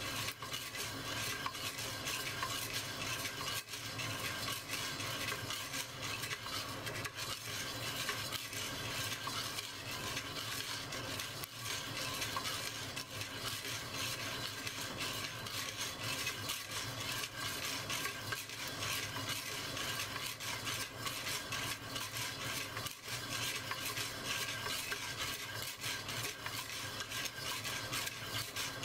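Coffee beans being stirred in a clay roasting pot: a steady, dense clatter of many small clicks as the beans scrape and tumble against the pot.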